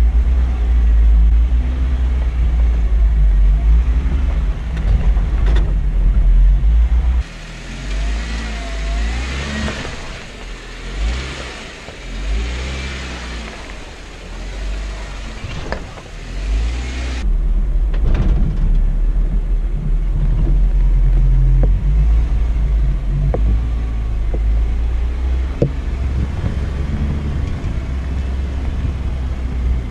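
Rented off-road Jeep's engine running and revving as it climbs over rock, under a heavy low rumble. The sound changes abruptly about seven seconds in, turning thinner and hissier, and changes back about seventeen seconds in.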